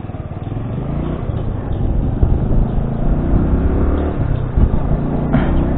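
Motorcycle engine pulling away and picking up speed, its pitch rising twice as it accelerates and growing louder.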